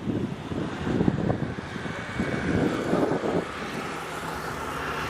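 Jet noise from a Cessna Citation XLS+ business jet's twin turbofans, a steady whine that grows from about two seconds in, under heavy gusty wind buffeting the microphone for the first few seconds.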